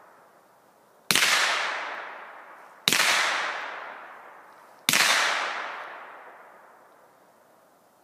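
Three gunshots, about two seconds apart. Each one trails off slowly over two to three seconds.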